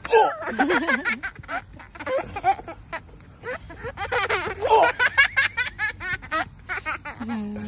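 A young child laughing and squealing in repeated short bursts, with brief pauses between them.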